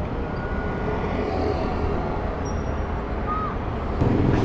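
Steady street traffic noise with a low rumble. About four seconds in it gets louder as a riding glove is pulled on, with a short handling sound at the very end.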